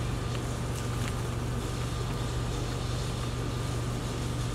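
Steady low background hum under a constant hiss, with a faint high steady tone and a few faint ticks.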